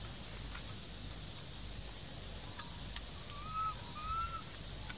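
Outdoor forest ambience: a steady high-pitched hiss with a low rumble beneath, and two short whistled calls a little after three and four seconds in.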